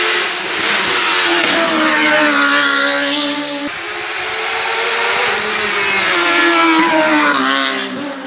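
Hill-climb race car engine at high revs, accelerating hard up the mountain road. The pitch climbs, drops sharply on a gear change about three and a half seconds in, then climbs again.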